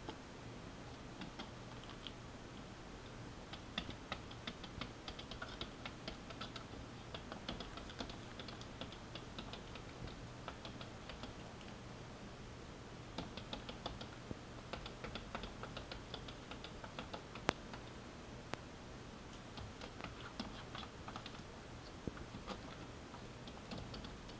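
A kitten's paws and claws tapping and scratching against mirror glass: irregular clusters of light clicks, several a second, with short pauses, over a faint steady hum.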